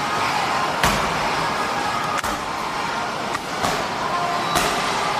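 Strikes smacking onto Muay Thai pads: a few sharp slaps at uneven gaps of about a second, over steady background noise.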